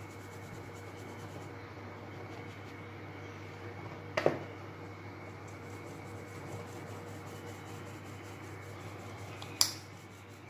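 Wheat flour being sifted by hand through a steel sieve: a soft, steady rubbing and rustling, broken by two sharp knocks, one about four seconds in and one near the end.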